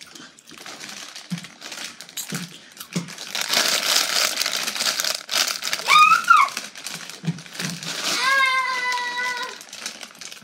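Plastic potato chip bags crinkling as they are handled and pulled open by hand. A voice gives a short rising-and-falling call about six seconds in and holds a note near the end.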